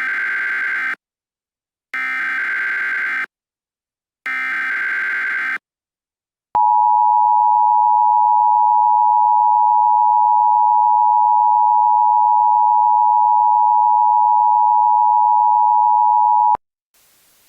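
Emergency Alert System SAME header: three short bursts of digital data tones, each about a second long, then the two-tone EAS attention signal (853 and 960 Hz together) held steady for about ten seconds before it cuts off.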